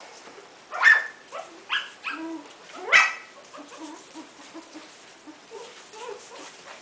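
Four-week-old Coton de Tulear puppies yipping, with the two loudest high yips about one second and three seconds in and smaller cries between. Fainter squeaks and whimpers follow.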